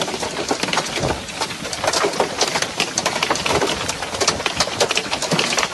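Hailstones pelting a moving car's roof and windshield, heard from inside the cabin: a dense, rapid clatter of hard hits over a steady rushing noise.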